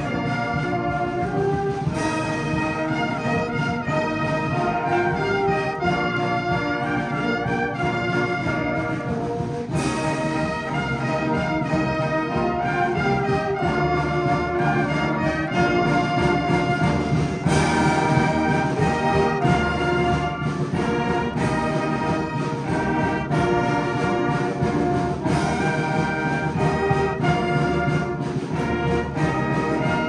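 Batterie-fanfare brass ensemble playing a concert piece: sustained brass chords under moving melodic lines, with stronger accented entries about two, ten and eighteen seconds in.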